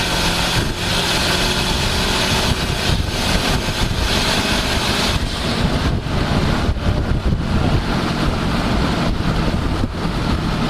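Subaru Impreza WRX rally car's turbocharged flat-four engine running hard at speed off road, under loud wind and tyre noise with frequent sharp knocks and rattles. About halfway through, the hissing rush eases off a little.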